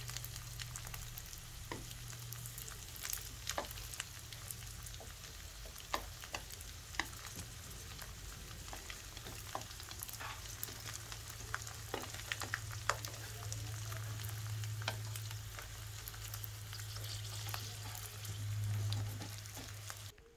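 Dried, salted snakeskin gourami frying crisp in hot oil: a steady sizzle with frequent sharp pops and crackles over a low steady hum. It cuts off suddenly near the end.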